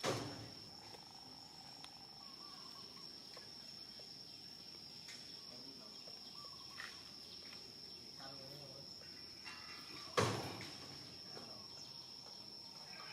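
A steady high-pitched insect trill runs throughout, with two sharp knocks, one right at the start and a louder one about ten seconds in.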